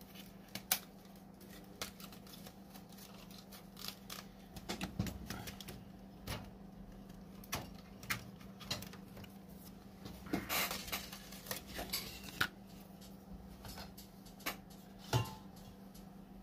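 Scattered light clicks and clinks of small tools being handled on a workbench, with a cluster of clattering about ten seconds in, over a faint steady hum.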